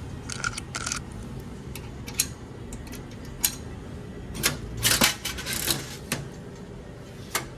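Quarters being fed into a coin-operated capsule vending machine: a series of sharp metallic clicks and clinks, busiest about five seconds in.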